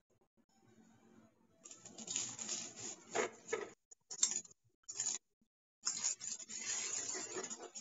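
Spaghetti being tossed and stirred in a stainless steel pan, the utensils scraping and rubbing against the pan in short bursts broken by sudden silent gaps.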